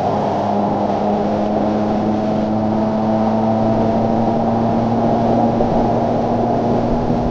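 Sport motorcycle engine running steadily at riding speed, its pitch creeping slowly upward, with wind rushing over the on-bike microphone.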